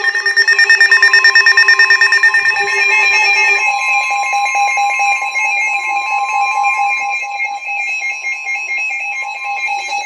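Weather alert radio alarm sounding for an incoming flash flood warning: a loud, rapidly pulsing electronic tone that shifts to a different set of pitches about three and a half seconds in.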